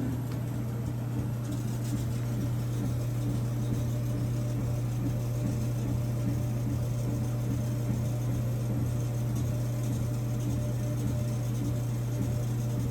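Laser engraver running while it engraves and cuts leather: a steady low hum with the shifting whir of the laser head's motors moving back and forth over it.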